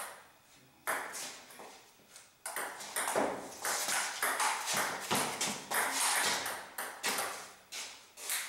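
Table tennis ball being hit back and forth: sharp clicks as it strikes the rubber paddles and bounces on the table, starting about a second in and coming thick and fast.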